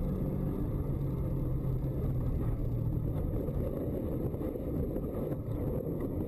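Car engine running with tyre and road noise on a snow-covered road, heard from inside the cabin: a steady low drone with a held engine note that fades after a few seconds.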